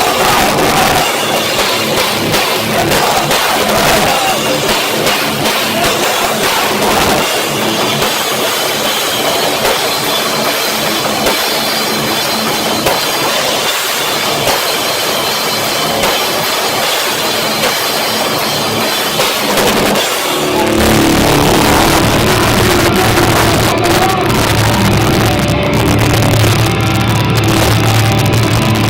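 A loud rock band playing live, with drum kit and distorted guitars, captured by a cheap phone microphone so the sound is harsh and overloaded. About two-thirds of the way through, the music shifts to a heavy, sustained low drone.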